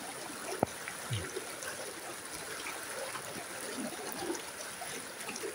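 Muddy floodwater rushing and churning over a dirt track, a steady rush of flowing water.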